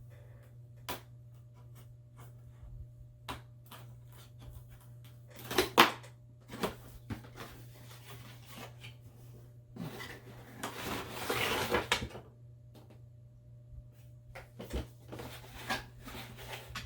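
A cardboard box and its packaging being opened and handled by hand: scattered taps and knocks, a sharp knock about six seconds in, and about two seconds of rustling and scraping from around ten seconds in, over a steady low hum.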